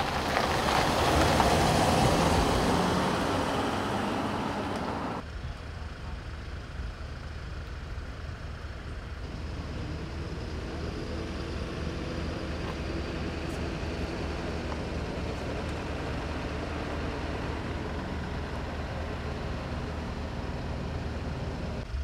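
An ambulance van drives past, loudest about a second and a half in and fading, until the sound cuts off after about five seconds. A fire truck's engine then idles steadily with a low hum.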